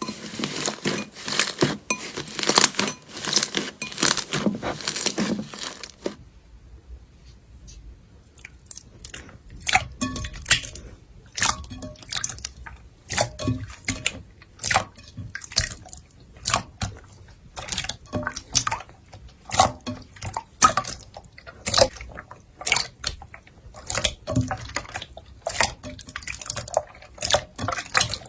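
Slime being squeezed and pressed by hand. For about the first six seconds it gives a dense crackling and rubbing; after that come separate wet clicks and pops, about one or two a second.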